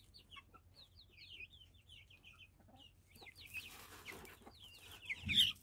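Young, half-grown chickens peeping and clucking, a quick run of short high calls one after another. Near the end comes a louder call together with a dull thump.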